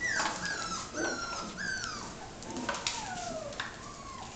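Young puppies, almost six weeks old, whining and yipping: a string of high, falling whines, some overlapping, with a longer drawn-out whine about three seconds in.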